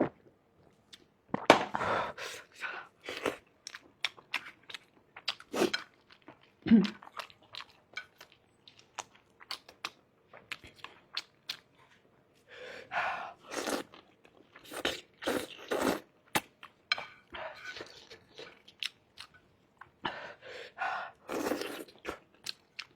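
A person chewing food close to the microphone, in irregular bouts of wet mouth clicks and smacks with some crunching. There is a brief low hum from the eater about seven seconds in.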